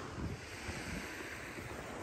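Surf washing onto a sandy beach, with wind rumbling on the microphone.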